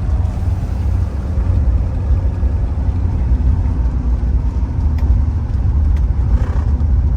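Steady low rumble of a 1983 Mercedes-Benz 300CD's 3.0-litre turbodiesel inline-five running, heard from inside the car's cabin.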